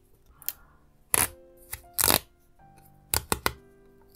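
Dust-removal sticker being dabbed onto and pulled off an iPhone's glass screen: about five short, sharp sticky smacks, three of them in quick succession past the middle, over soft background music with held notes.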